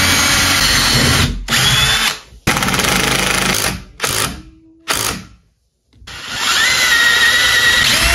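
Handheld power tool working wood, running in several short bursts with abrupt stops and a brief silence a little past halfway, then spinning up again with a rising whine that levels off near the end.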